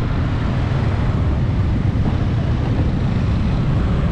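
Steady low rumble of a vehicle on the road, with no distinct events.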